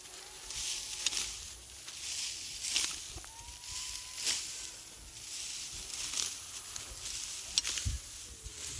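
Irregular hissing and rustling swishes, with a few faint whistled tones.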